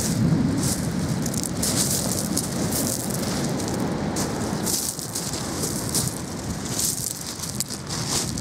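Footsteps crunching on loose gravel at an irregular pace, over a steady low rushing noise.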